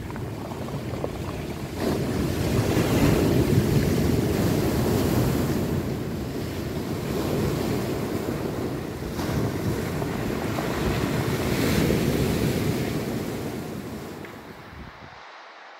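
Sea surf washing along the shore, swelling and ebbing, with wind buffeting the microphone; it cuts off abruptly shortly before the end.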